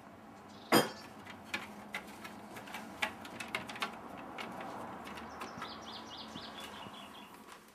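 A small bird chirping in a quick run of short notes in the second half, over outdoor background noise. Scattered taps and clicks come before it, the sharpest one about a second in.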